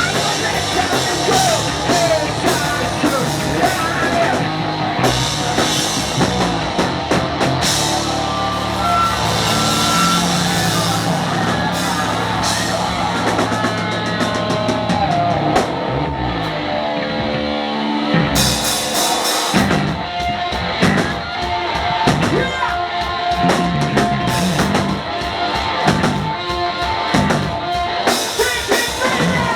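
Hard rock band playing live, with drum kit, electric guitar and bass guitar, heard from the crowd. A stretch with held and stepping guitar lines thins out past the middle, the drums and cymbals dropping away for a few seconds, then the full band comes back in.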